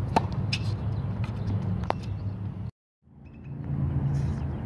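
Tennis ball struck by a racket: a sharp pop just after the start and another near two seconds in, over a steady low rumble. The sound cuts out briefly about two and a half seconds in, then fades back in.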